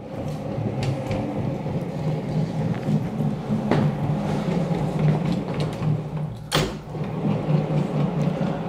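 The eight wheels of a heavy longarm quilting carriage rolling along the metal tracks of the frame, a steady rumble. The wheels are pushing the tracks into parallel. Two sharp knocks come about four and six and a half seconds in.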